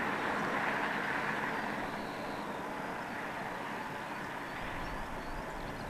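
Boeing 747's four jet engines at takeoff power on the takeoff roll, heard at a distance: a steady rushing noise that eases slightly after about two seconds.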